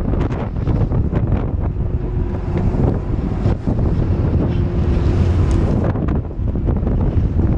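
Strong wind buffeting the microphone on a fishing boat at sea, over a steady low engine drone and the wash of waves.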